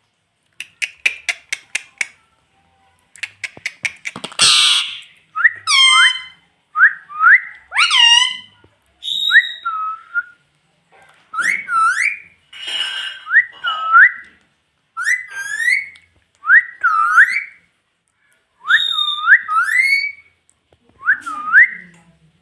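Pet ringneck parrot whistling: a long run of short swooping whistle notes, about one a second. It opens with a few quick clicks and gives a single harsh squawk about four seconds in.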